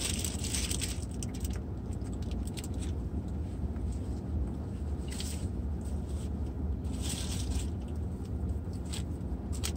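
Steady low hum of a car's cabin, with a few brief rustling noises from the people eating in it.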